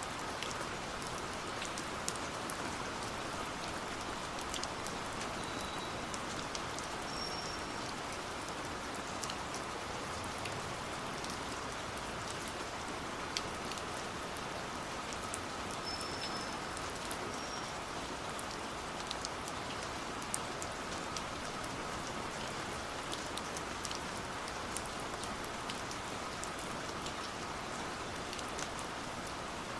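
Steady rain falling, an even hiss with scattered drop ticks. A few brief, faint high peeps come through around the first third and the middle.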